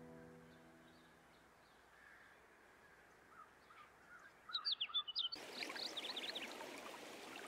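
The tail of background music fades out, then small birds chirp in quick, high runs, louder from about four and a half seconds in, over a steady rushing hiss that comes in soon after.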